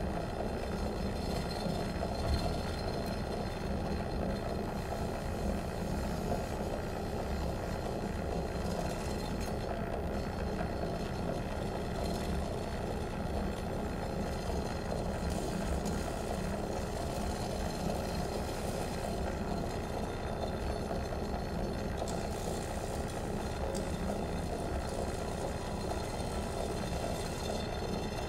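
A steady, dense electronic drone of many faint held tones over a low rumble, without clear melody or strikes, from a live experimental improvisation for trumpet, biosignal electronics and sound objects.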